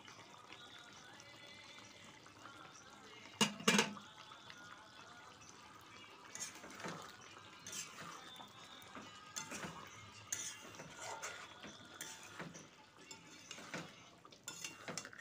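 Steel spatula stirring a thick curry in a metal kadai, scraping and clinking against the pan irregularly. Two sharp metal knocks come about three and a half seconds in and are the loudest sounds.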